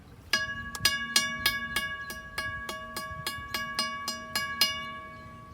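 WRRS mechanical railroad crossing bell ringing, struck about three times a second over a steady ringing tone that fades near the end.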